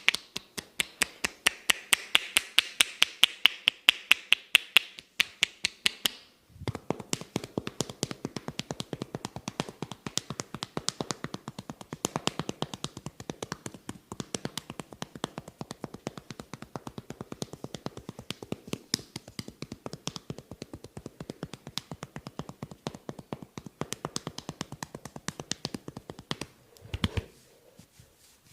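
Rapid, even tapping of a masseur's hands during a head massage, several strokes a second. The taps are crisp for the first few seconds, then after a brief pause about six seconds in they turn denser and duller.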